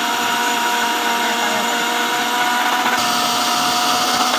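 Electric mixer grinder running steadily at full speed, blending a jar of milk: an even motor whine over the churning of the liquid.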